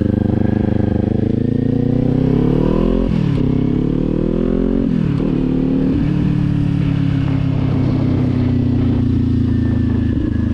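Kawasaki motorcycle engine accelerating through the gears. The revs climb and drop at an upshift about three seconds in, climb and drop again at a second upshift about five seconds in, then hold steady at cruising speed.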